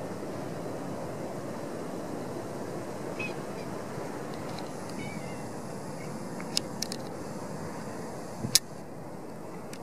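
Steady low rushing outdoor background noise, with a few sharp clicks about six and a half seconds in and a louder single click near the end.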